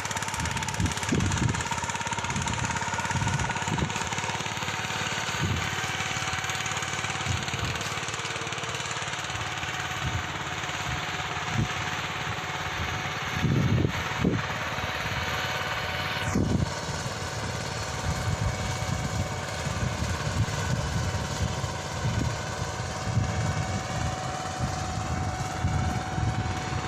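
Engine of a ploughing machine running steadily in the field, with irregular low bumps over the steady engine noise.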